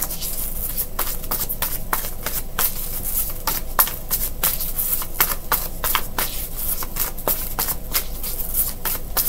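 A tarot deck being shuffled by hand: a dense, irregular run of quick card clicks and slaps, with one louder slap about four seconds in.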